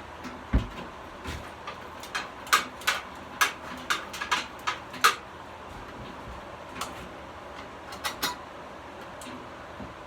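Irregular series of sharp clicks and knocks of hard objects being handled, with a dull thump about half a second in and the clicks densest between two and five seconds in.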